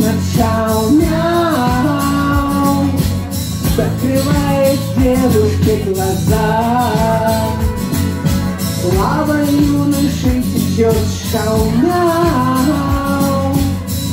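A man singing live into a microphone over a backing track with a steady beat.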